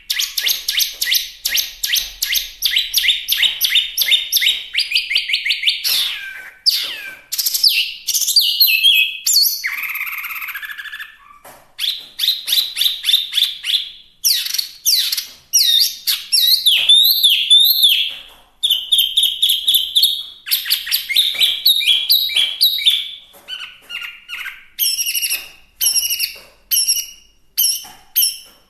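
Hwamei (Chinese hwamei) singing loudly and vigorously: fast runs of repeated whistled notes and varied phrases. A harsh, raspy phrase comes about ten seconds in, and the song breaks off briefly twice.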